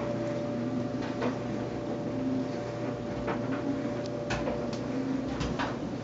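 LG WT4801CW top-load washing machine running mid-wash: a steady hum with a few sharp clicks and knocks scattered through it.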